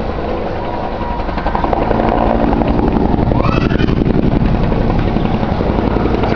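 Military helicopter flying over, its rotor beating in a fast steady pulse that grows louder about two seconds in. A short rising squeal sounds about three seconds in.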